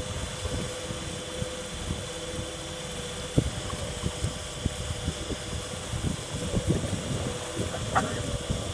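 Tour boat's motor running steadily with a constant hum, under irregular low thumps.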